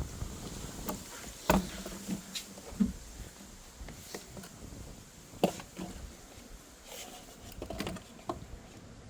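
A few sharp knocks and clicks at irregular intervals over a faint steady hiss. The loudest come about one and a half seconds in, near three seconds and about five and a half seconds in.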